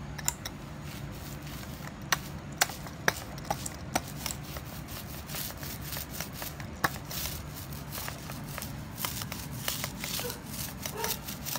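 A roller being worked over epoxy-wetted chopped-strand fiberglass mat, giving a sticky rubbing with scattered sharp clicks at first, then a denser run of quick ticks as the rolling picks up about nine seconds in.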